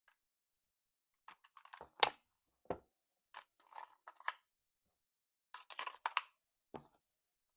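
Hands handling plastic and packaging: short bursts of crinkling and crunching with clicks, and sharper knocks about two seconds in and near the end.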